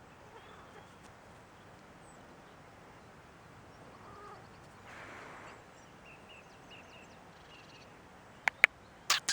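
Quiet outdoor background with faint small-bird chirps, then near the end two sharp clicks and a short loud sound.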